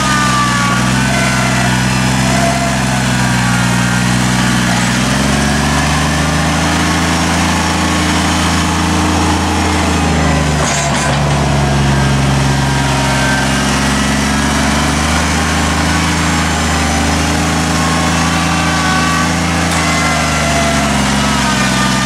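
Kubota sub-compact tractor's diesel engine running under heavy load while its front loader pushes dirt. The engine note sags and picks up again several times as the tractor struggles some.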